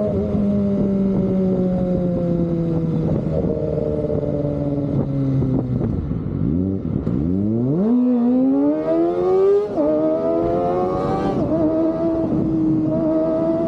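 Kawasaki ZX-25R inline-four running through an Austin Racing aftermarket exhaust while riding. The engine note sags slowly, dips sharply about six seconds in, then climbs as the bike accelerates, with gear changes near ten and eleven seconds, before settling into a steady cruise.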